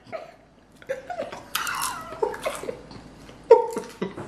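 Men laughing in short, breathy bursts, with a few murmured sounds between them.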